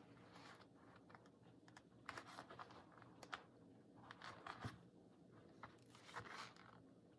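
Faint rustling and scattered light clicks of a paper-and-card junk journal being handled while it is sewn together.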